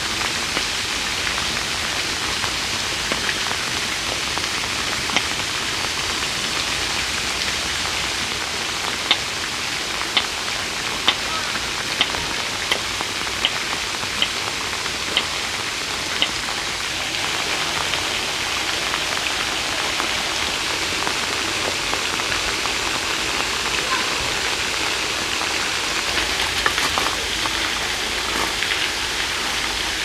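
Steady rain falling, with a run of sharp single taps, about one a second, from around five seconds in to about sixteen seconds in.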